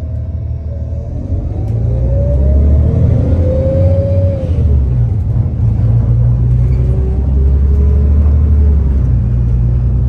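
New Flyer XN40 bus engine and Voith automatic transmission running under way, heard from inside the bus: a heavy low rumble that grows louder about two seconds in, with a transmission whine rising in pitch and then dropping away about four and a half seconds in, and a fainter whine near the end.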